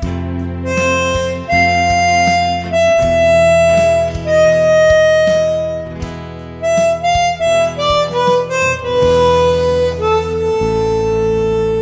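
Hohner harmonica playing a slow melody one note at a time over a steady low accompaniment, ending on a long held note near the end.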